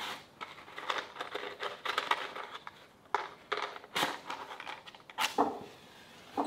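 Crinkling and rustling handling sounds, then a couple of sharp scrapes near the end as a match is struck on its box and flares alight.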